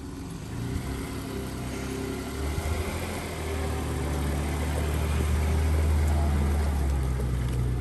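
Motor vehicle engine running steadily at low revs, growing louder about two and a half seconds in and then holding steady.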